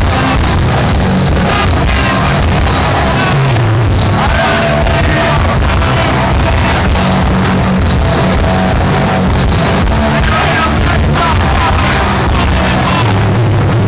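Hardcore punk band playing live: loud, dense distorted guitars, bass and drums with shouted vocals, recorded from within the crowd.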